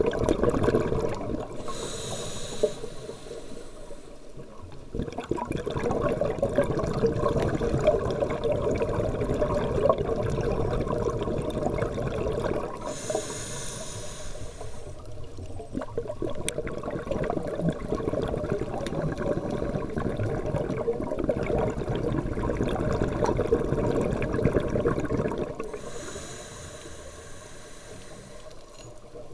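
A scuba diver breathing through a regulator, heard underwater: three short inhalations with a high hiss, about every twelve seconds, and between them long, louder exhalations of bubbling, crackling air.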